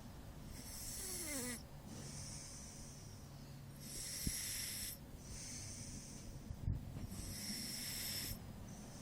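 A sleeping domestic cat snoring, three slow breathy snores about three seconds apart.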